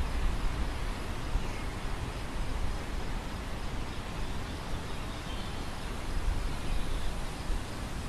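Wind blowing through a field of ripe wheat, the stalks rustling in a steady hiss, with a low wind rumble that swells and fades in gusts. Faint bird chirps come through now and then.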